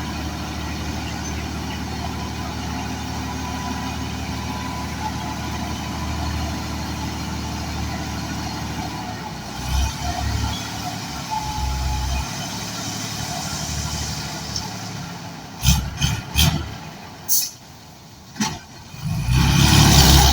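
A vehicle engine running with a steady low drone, becoming uneven after about nine seconds. Near the end come several sharp knocks or clatters, then the engine sound rises loudly again.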